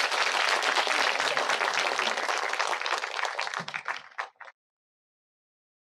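Audience applauding, a dense patter of many hands clapping that thins out and then cuts off abruptly about four and a half seconds in.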